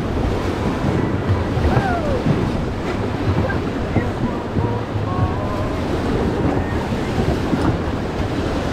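Whitewater of a Colorado River rapid rushing and churning, a steady loud noise of moving water.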